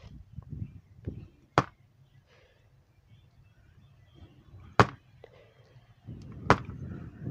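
Three sharp knocks a few seconds apart as the radio's circuit board is rapped on the workbench to knock melted solder out of the volume control's pin holes while desoldering it.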